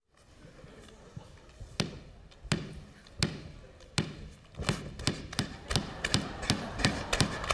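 Basketball-dribble bounce sounds for a mimed dribble: sharp thuds on a hard floor, slow at first, about one every three-quarters of a second, then quickening to about three a second from a little past halfway.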